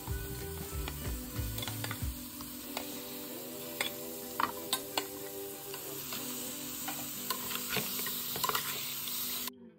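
Lamb chops sizzling in hot masala in a metal pot as they are stirred in, with scattered clicks of the spoon against the pot; soft background music underneath. The sound cuts off abruptly near the end.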